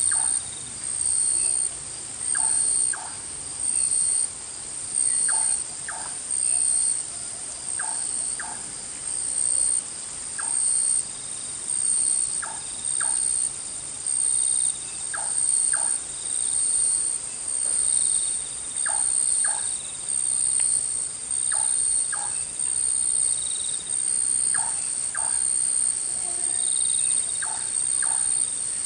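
Tropical forest insect chorus of crickets or cicadas: a high shrill trill that swells and fades about every second and a half, with short lower calls in pairs every two to three seconds.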